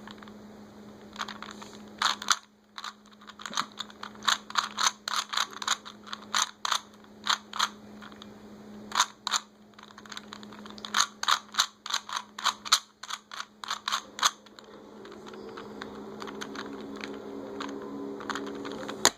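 Plastic Rubik's cube being twisted by hand: layers clicking and clacking in quick runs of turns, stopping about 14 seconds in. A steady low hum runs underneath, and a steady humming sound with a few held tones comes in for the last few seconds.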